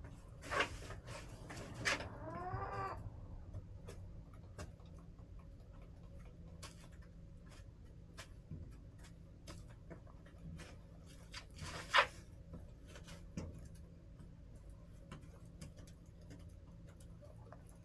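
A backyard hen gives one drawn-out call that rises and then falls in pitch, about two seconds in. Around it, scattered light clicks and two sharper knocks, one near the start and one about twelve seconds in, from the hens pecking and moving about the coop.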